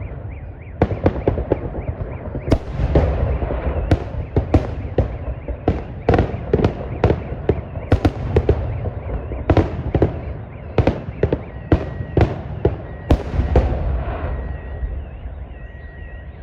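Fireworks salute: a rapid, irregular string of sharp bangs over a low rumble, thinning out near the end, when a faint wavering tone comes in.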